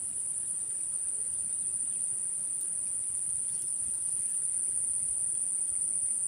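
Steady, high-pitched drone of a chorus of insects, going on without a break.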